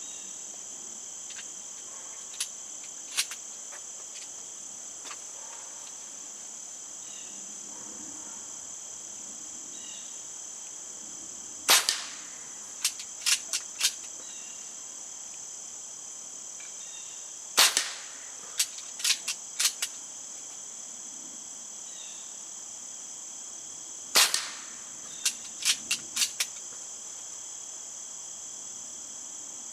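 Diana Bandit .22 PCP air pistol fired three times, several seconds apart, each sharp crack followed about a second later by three or four quick clicks as the bolt is cycled for the next pellet. A steady high chirring of crickets runs underneath.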